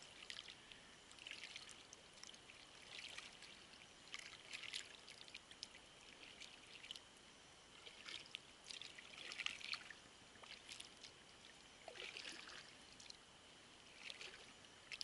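Faint splashing and dripping of a double-bladed kayak paddle dipping into calm water, a stroke about every one and a half to two seconds.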